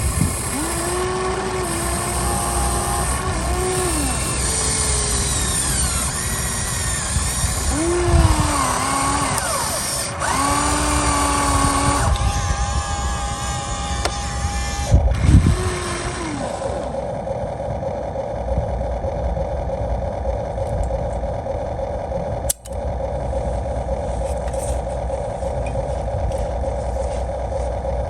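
Electric motors of an RC excavator (model 1593) whining as the machine works, the pitch rising and falling with each movement, then settling into a steadier whine about halfway through.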